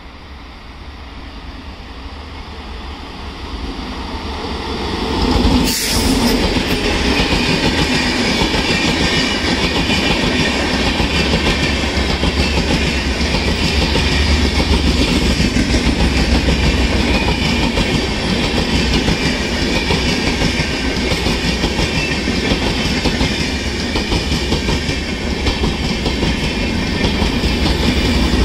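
Rajdhani Express passenger train approaching and passing close by at speed, growing louder over the first few seconds. There is a sudden loud burst about six seconds in. After that the LHB coaches rush past with a steady, loud clickety-clack of wheels over the rail joints.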